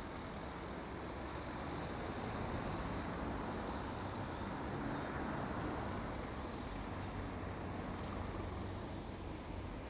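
English Electric Class 37 diesel locomotive with its V12 diesel engine running: a steady low rumble that swells a little in the middle and eases again.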